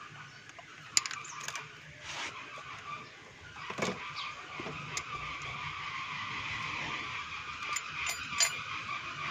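Steel ring spanner and feeler gauge clicking against the rocker arms and adjusting screws of a Mitsubishi 4G13 valve train while the valve clearance is set. There is a sharp click about a second in, a few lighter ones, and another near the end. Under them runs a steady high-pitched whine that grows stronger from midway.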